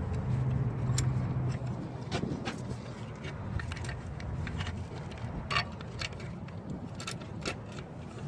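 Scattered light metallic clicks and clinks of hand tools and parts being handled under the hood, over a low steady hum that is a little louder in the first couple of seconds.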